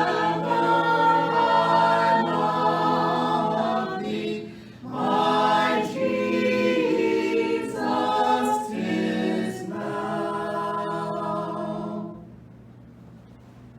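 Several voices singing a hymn a cappella in harmony, with no instruments. The last phrase is held and ends about twelve seconds in, leaving a faint low hum.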